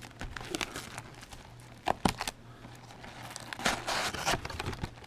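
Plastic shrink-wrap film crinkling and tearing as it is slit and pulled off a cardboard trading-card box, with a couple of sharp clicks about two seconds in and a louder burst of crinkling a little later.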